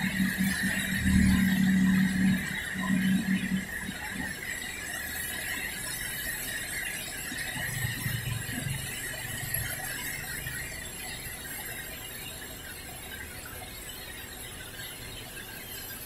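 Heavy rain on a city street with passing traffic: a vehicle engine in the first few seconds alongside a high squeal, then a steadier hiss of rain with another engine passing about eight seconds in.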